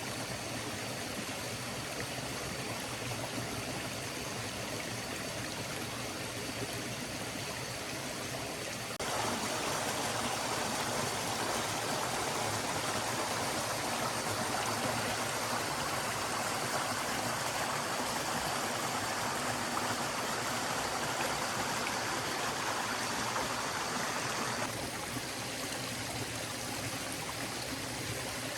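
A forest stream flowing steadily, a continuous rush of water. It becomes louder and brighter about nine seconds in and drops back to its earlier level about twenty-five seconds in.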